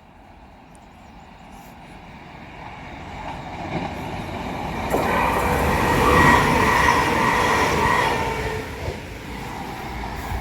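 A diesel-hauled train approaching and passing, building to its loudest about six seconds in and then easing off, with a steady high-pitched tone over the rumble during the loudest stretch.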